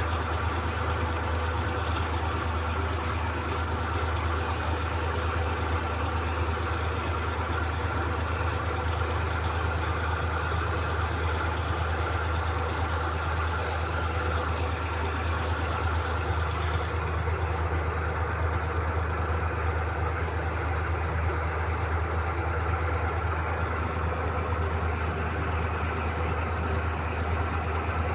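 Torpedo 4506 tractor's diesel engine running steadily as the tractor drives along, heard from the driver's seat.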